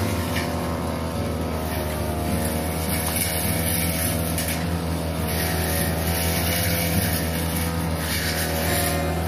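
Backpack brush cutter's engine running steadily as its 45 cm blade trims the leafy branches of an ixora hedge.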